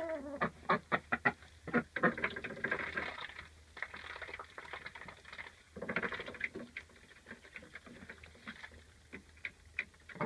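Chickens and ducks pecking and shuffling in straw bedding: a quick run of sharp taps in the first couple of seconds, then bouts of rustling.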